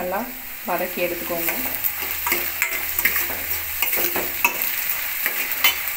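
Chopped onions, garlic and ridge gourd sautéing in hot oil in a stainless steel pan as they are stirred: a steady sizzle with repeated scraping ticks of the utensil against the pan.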